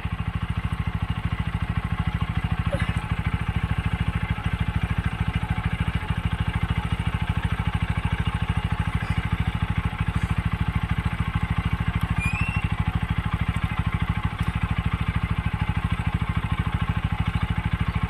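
Single-cylinder motorcycle engine of a TVS Apache idling steadily, with an even pulse.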